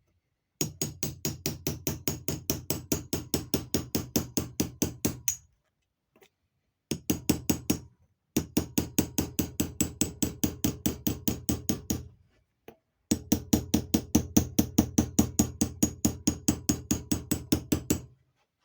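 Hammer rapidly tapping a small square punch against the metal vacuum advance canister, about five or six light strikes a second, in four runs with short pauses between.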